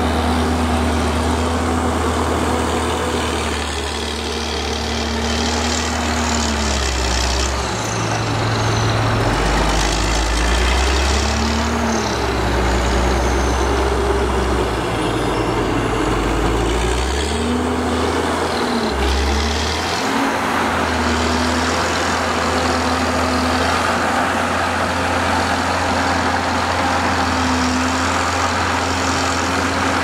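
Motor grader's diesel engine working under load, its pitch dropping and picking up again several times as the load on the blade changes.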